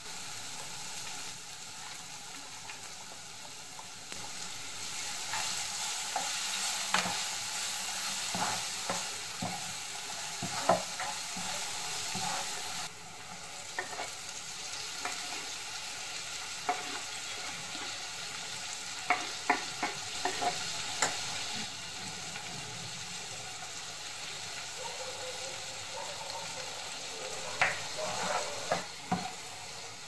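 Vegetable mixture sizzling as it fries in a nonstick kadhai, with a plastic spatula stirring it and scattered clicks and taps of the spatula against the pan. The sizzle drops a little about halfway through.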